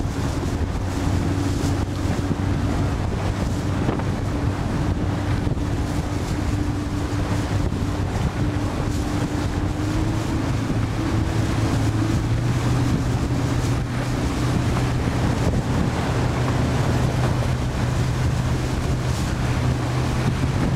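Wind buffeting the microphone and water rushing past a boat's hull, over the steady hum of a motor that rises slightly in pitch about halfway through.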